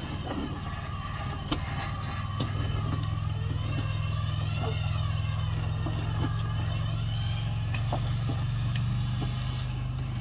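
A lifted third-generation Toyota 4Runner's engine running at low revs under load as the truck crawls over rock ledges. The revs rise a little a few seconds in, and there are a few sharp knocks from the tyres and rocks.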